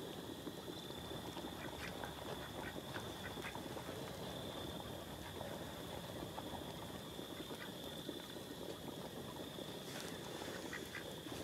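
A whole beaver cooking on a small smoking grill: a faint, steady hiss of sizzling with scattered small pops and crackles, under a thin, steady, high-pitched whine.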